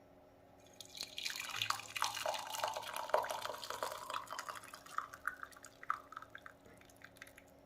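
Hot herbal decoction being poured through a strainer: a splashing trickle of liquid that thins to scattered drips and stops near the end.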